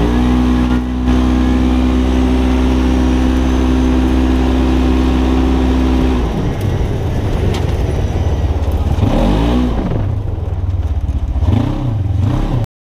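Side-by-side UTV engines racing at full throttle, holding one steady high note, which bends down as the machines pass about six seconds in. After that the engine pitch swings up and down several times. The sound cuts off abruptly just before the end.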